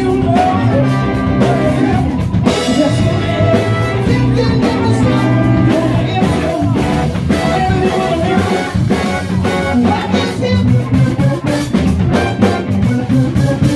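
Live rock and dance band playing a song: drum kit, electric guitars and a singer, loud and continuous.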